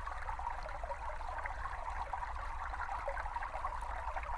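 Small brook babbling and trickling, a steady field recording of running stream water with a low rumble beneath.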